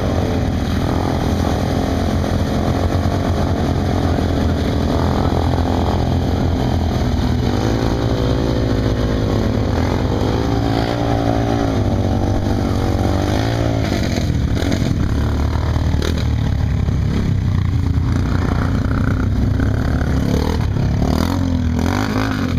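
ATV and side-by-side UTV engines running over a steady low engine drone, their pitch rising and falling as the machines rev through deep mud, most strongly in the middle of the stretch.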